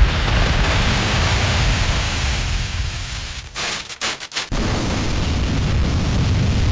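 Boom sound effect: a loud, steady rumbling roar of noise with a heavy low end. About three and a half seconds in it thins and cuts out in a few short gaps, then comes back about a second later and carries on.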